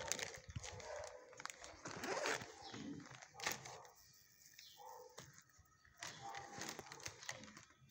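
Dog sounds in a shelter kennel, low and irregular, with scattered clicks and a short pitched sound about five seconds in.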